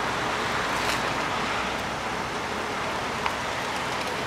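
Steady roadway and engine noise, even throughout, with a single sharp click about three seconds in.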